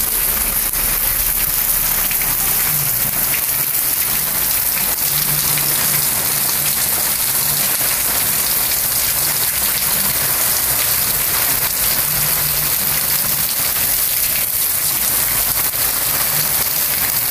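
Heavy rain pouring down steadily, splashing onto a water-covered paved yard.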